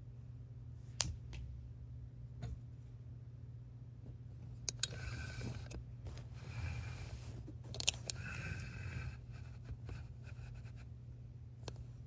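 Handling noise from a phone being moved about: sharp clicks and stretches of rubbing and rustling against the microphone, over a steady low hum.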